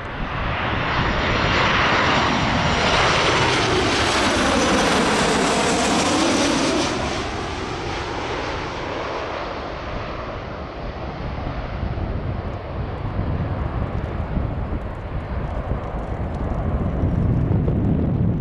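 Boeing 737 twin-jet airliner on final approach passing low overhead, its engine noise a loud rushing roar with a swooping, falling-then-rising tone as it goes over. The noise is loudest in the first seven seconds, then fades to a steadier, duller rush as the aircraft moves away.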